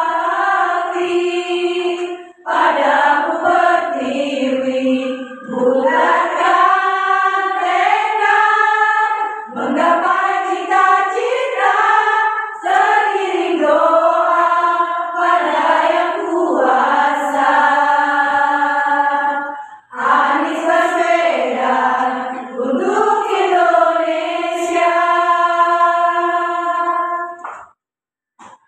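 Women's choir singing together in phrases with short breaks between them. The singing stops about a second before the end.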